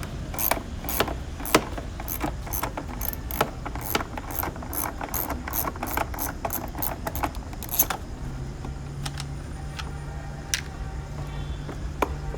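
Hand tools working the screws and plastic clips of a car's A/C evaporator housing as it is taken apart: quick, irregular clicks and ticks several times a second. From about eight seconds in a steady low hum takes over, with only a few clicks.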